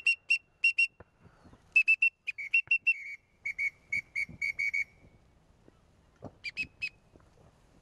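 A duck whistle call blown in short, quick toots. A run of a dozen or so notes comes in the first five seconds, stepping slightly lower in pitch partway through, and three more follow about six and a half seconds in.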